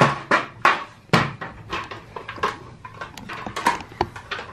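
A bent eating tray with metal folding legs being handled and worked on, giving a run of irregular knocks and clanks.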